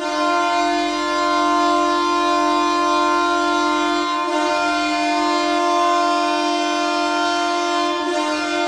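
Ottawa Senators' 2022–23 ice-hockey goal horn sounding one long, steady blast, a deep tone rich in overtones.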